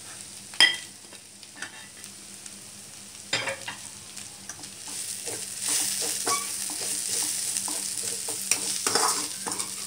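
Slotted metal spatula stirring and scraping moringa leaves sizzling in a non-stick kadhai, with a sharp metal clink about half a second in. The sizzle grows louder from about halfway as the stirring gets going.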